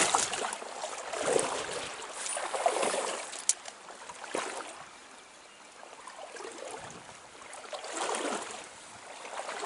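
Stream water running and trickling, swelling and fading in loudness, with a few sharp clicks, the clearest about three and a half seconds in.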